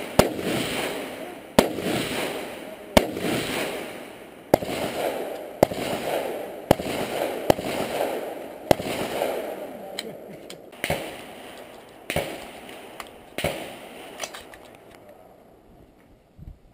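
AR-style rifle fired in a series of single shots, about one a second, more than a dozen in all, each shot trailing off in an echo. The shooting stops a couple of seconds before the end.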